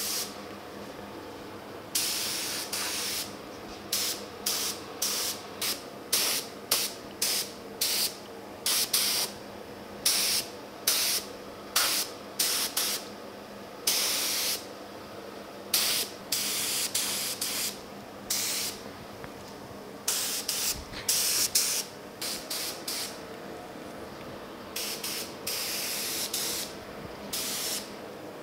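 Paint spray gun laying down clear coat in many short trigger pulls, each a hiss of a second or less, one after another, as it works around small parts with a tight pattern. Under it runs the steady hum of the spray booth's exhaust fan.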